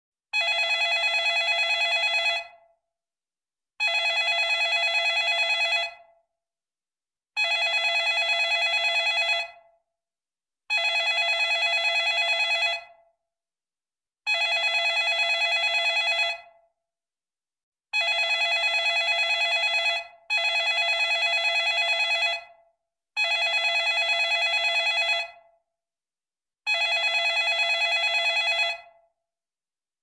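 Telephone bell ringing: nine trilling rings of about two seconds each, repeated roughly every three and a half seconds, two of them back to back near the middle.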